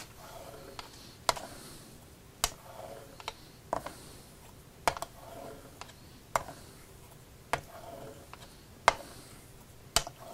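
A straight razor honed on a fine-grit Naniwa water stone in a pyramid edge refresh. A soft hiss comes from each stroke, and a sharp click about every second and a quarter as the blade is rolled over on its spine.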